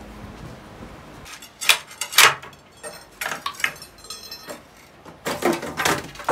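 A hand tool scraping in short, harsh strokes, several in all, the loudest about two seconds in and again near the end.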